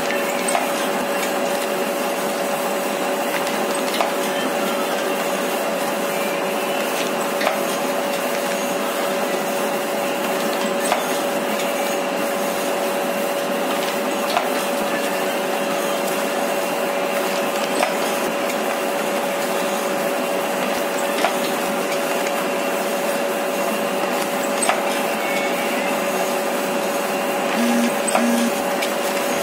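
Single-die plate-making machine with a 12-inch die running: a steady machine hum with a constant whine from its belt drive, and a short sharp knock about every three and a half seconds, in time with the press stroke.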